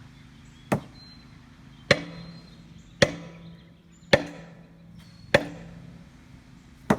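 Six heavy blows on the steel shell of an old water heater, struck about once a second, each a sharp metallic bang with a short ringing tail.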